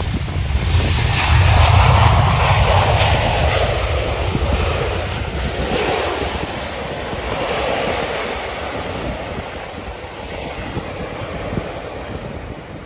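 Jet engines of a Vueling Airbus A320-family airliner running at high power as it rolls past on the runway: a deep rumble and rushing jet noise that peaks about two seconds in, then slowly fades with a wavering, falling whoosh as the aircraft moves away.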